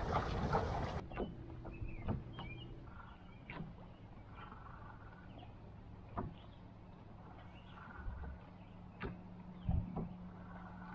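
About a second of loud rustling noise, then scattered soft knocks, a few seconds apart, of small waves lapping against the plastic hull of a paddle boat, over a faint steady low hum.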